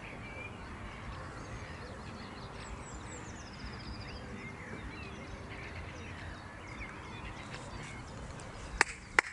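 Lakeside ambience: faint, scattered calls of wild birds over a steady low background noise, with a short run of quick repeated high notes in the middle. Two sharp clicks come near the end.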